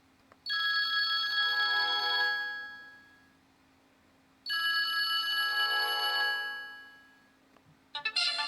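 Sony Ericsson W800i mobile phone ringtone: a ring of several held tones that starts sharply and fades out over about two seconds, sounding twice about four seconds apart. Near the end a different, busier ringtone starts.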